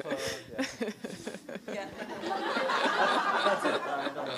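Audience laughing, with many voices overlapping into a murmur of laughter and chatter that swells about halfway through.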